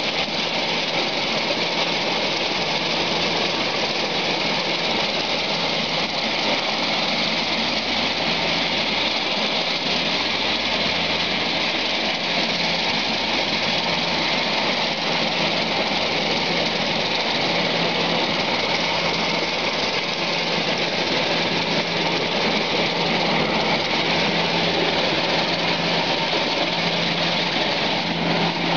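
Peanut shelling machine running steadily while peanuts are fed into its hopper: a dense, even mechanical noise from the shelling drum and blower fan over a steady low hum.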